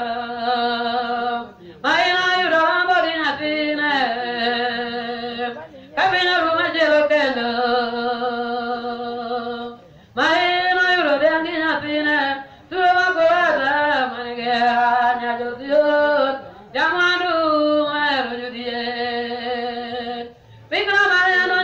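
Unaccompanied singing of a church prayer chant. It comes in phrases of about two to four seconds, each settling onto a long held note, with brief breaks for breath between.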